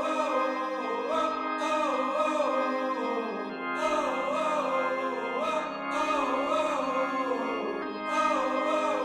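Background music: a melody that bends up and down over steady held chords, with a soft high shimmer coming in about every second and a half.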